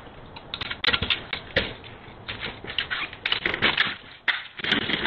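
Knee scooter's small wheels and frame rattling and clicking as it rolls over a concrete driveway, with a denser clatter near the end as the scooter tips over.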